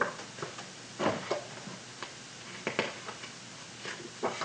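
Paper index cards being flipped over in a card stand: several short, sharp flicks and taps at uneven intervals.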